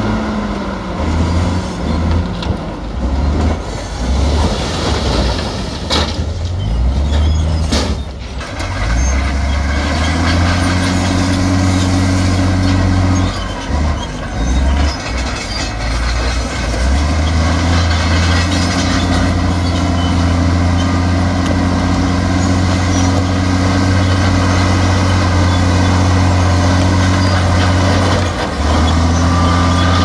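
Komatsu D68E bulldozer's diesel engine working under load, its low note dropping out and changing pitch several times as the load shifts, with a couple of sharp knocks about six and eight seconds in.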